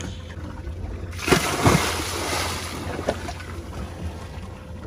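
A person jumping feet-first off a yacht into the open sea: a sudden splash about a second in, then churning water fading over the next couple of seconds, over a steady low rumble of wind on the microphone.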